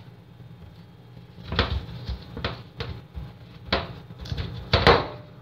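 Kitchen handling noise: a series of sharp knocks and clatters, about seven, like cupboard doors, pans or utensils being moved and set down, the loudest near the end.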